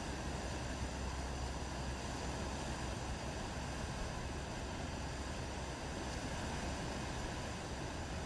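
Steady low rumble under an even hiss, with no distinct events: outdoor seaside ambience of wind and sea.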